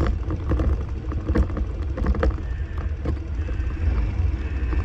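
Motorcycle riding noise at about 40 km/h: wind rumbling on the microphone over the engine and road noise, with a few brief knocks.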